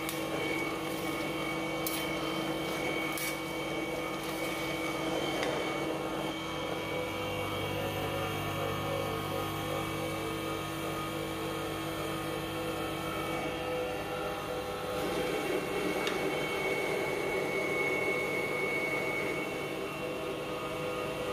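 Electric stainless-steel peanut butter grinder running with a steady hum and whine. Its tone shifts about six and fifteen seconds in, and there are light clicks about two and three seconds in.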